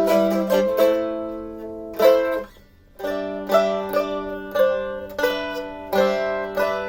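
Handmade Les Paul-style mandolin with a mango and teak body, played with a pick: ringing chords and notes, a short pause about two and a half seconds in, then chords strummed about twice a second.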